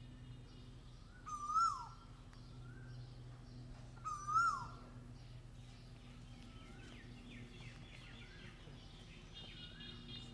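Koel calling: two loud calls about three seconds apart, each a clear note that climbs slightly and then drops sharply. Fainter calls follow further off, over a steady low hum.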